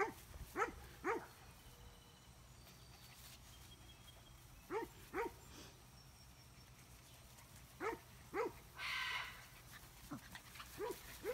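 A dog barking: short, pitched barks, mostly in pairs a few seconds apart, with a brief hiss-like noise about nine seconds in.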